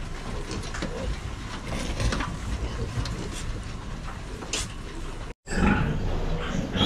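Pig-barn sound of piglets moving about a slatted pen: a steady low rumble with scattered clicks and knocks. After a sudden cut about five seconds in it turns louder, with pigs grunting around a nursing sow.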